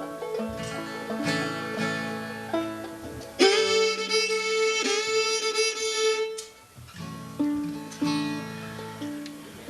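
Old-time string band instruments played loosely between tunes: plucked banjo and guitar notes, with a fiddle bowing one long held note of about three seconds in the middle.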